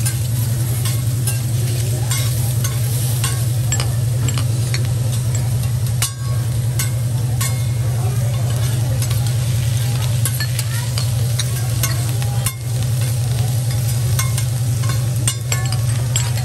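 Shrimp and vegetables sizzling on a teppanyaki steel griddle while a metal spatula and fork scrape and clack against the hotplate in many short, sharp strokes. A steady low hum runs underneath.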